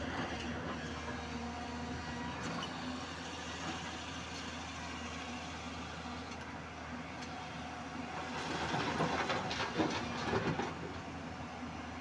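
JCB tracked excavator's diesel engine running steadily under load. From about eight and a half seconds to nearly eleven seconds comes a louder rattling rush of broken rock and soil (muram) tipped from the bucket into a dump truck's body.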